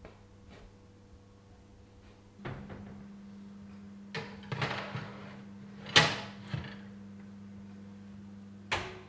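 Built-in electric oven door opened, then a metal tart tin set onto the oven rack with several sharp metallic knocks, the loudest about six seconds in. The oven door swings shut with a thud near the end. A steady low hum comes in as the door opens.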